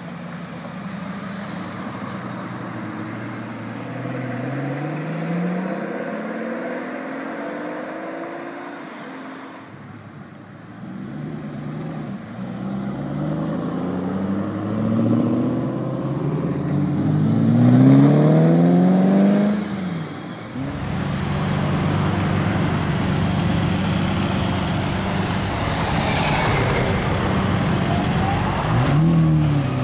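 Sports car and supercar engines pulling away one after another, including a Chevrolet Corvette V8 and a Lamborghini Murciélago V12. Each engine rises in pitch through the gears, the loudest pull coming about two-thirds of the way in. After that a deep engine note runs steadily and loudly, rising again at the very end.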